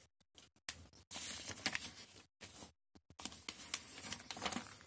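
Ballpoint pen scratching on notebook paper while writing, in two short spells, one about a second in and another from about three seconds in.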